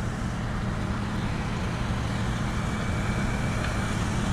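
Engine running steadily, with an even low hum.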